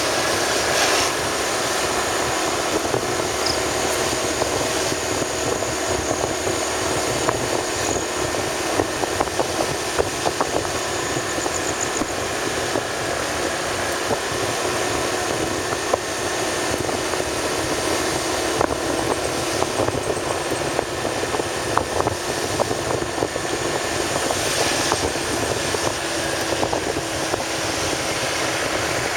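Steady running noise of a moving vehicle, engine and road noise together, with many small scattered clicks and knocks over a stretch of broken road.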